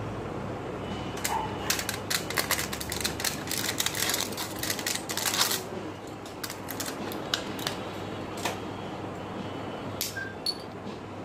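Crinkling and clicking of plastic and foil medicine packaging being handled: a dense run of quick crackles early on, then scattered single clicks.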